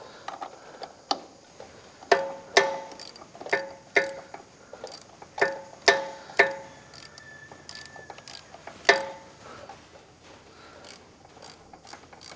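Ratchet wrench with a 9/16 socket undoing the 3/8 UNC bolts that hold a tractor's power steering pump. It gives a series of sharp metallic clicks, each with a short ring, loudest and most frequent between about two and nine seconds in.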